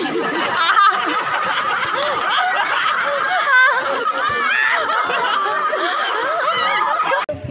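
Audience laughing, many voices overlapping in a continuous wave of laughter. It breaks off abruptly just before the end.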